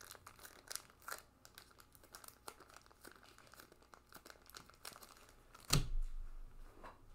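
Foil trading-card pack wrappers crinkling and tearing as packs are opened, in a string of small crackles and ticks. A louder thump comes a little over five seconds in.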